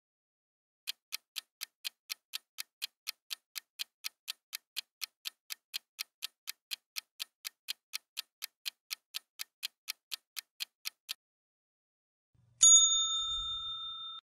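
Countdown-timer ticking sound effect, clock-like ticks about four a second for about ten seconds, marking the quiz's 10-second round running out. About a second and a half after the ticks stop, a louder bright bell-like ding rings and fades as the answer is revealed.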